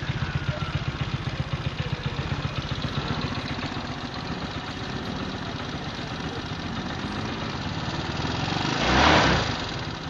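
Yamaha Mio Sporty scooter's 160cc single-cylinder engine running through an MTRT Evo Silent power pipe exhaust. It starts with a fast, even pulsing that smooths out into a steadier, slightly louder run above idle. A brief louder rush comes about nine seconds in.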